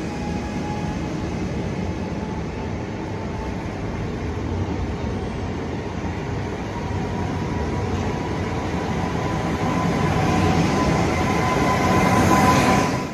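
Koleje Dolnośląskie Newag Impuls 45WE electric multiple unit running close by: a steady rumble of the train with a faint steady whine, getting louder toward the end.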